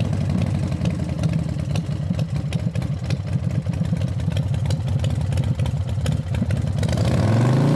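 Cruiser motorcycle engine running at cruising speed on the road, with wind buffeting the microphone. Near the end it gives way to a smoother, steady engine-like tone that rises briefly in pitch.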